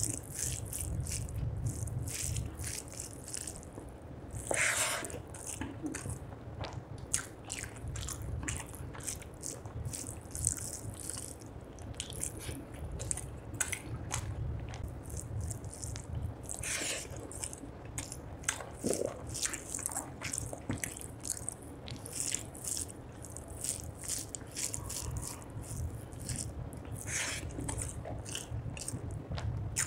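Close-miked eating of rice and fish curry by hand: wet chewing and a rapid run of small mouth clicks, with the squish of fingers mixing rice into the gravy, over a low steady hum.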